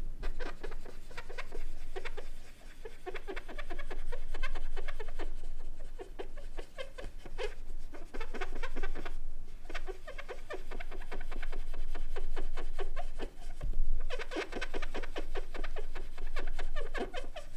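Cotton-tipped applicator scrubbing an aluminium strain-gauge beam wet with MN5A conditioner, in runs of quick rubbing strokes with short pauses between. This is the neutralizing step that follows acid etching.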